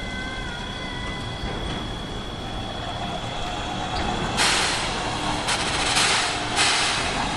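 8620-class steam locomotive standing on a turntable, letting off steam. From about four seconds in, loud hissing comes in bursts of roughly a second each, over a steady high whine and low rumble.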